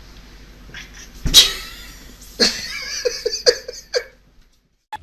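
A sudden loud noise about a second in, then a cat's drawn-out cry breaking into several short pulses, cut off abruptly about four seconds in.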